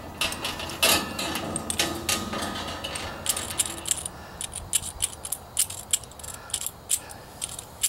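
Irregular light metallic clicks and clinks, like tools and small metal parts being handled, coming thicker in the second half.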